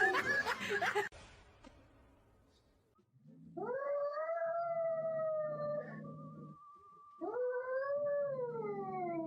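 A dog howling twice: two long howls, each rising at the start and sliding down in pitch at the end.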